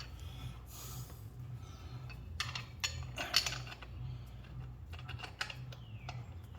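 Small metal clicks and clinks of lug nuts being handled and started onto the wheel studs of a dual-wheel axle extension, in scattered groups, over a steady low hum.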